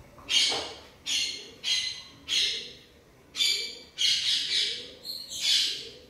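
Blue-throated barbet giving a run of seven short, harsh, raspy calls, each about half a second long and evenly spaced.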